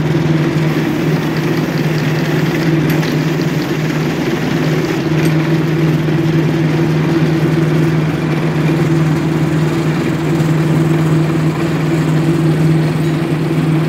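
Rattan sizing machine running, its motor-driven rollers spinning with a steady, even hum.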